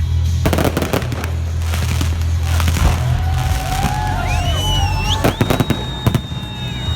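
Fireworks display: repeated bangs of bursting shells over a steady low rumble, with whistling tones gliding up and down in the second half and one high whistle held for about two seconds near the end.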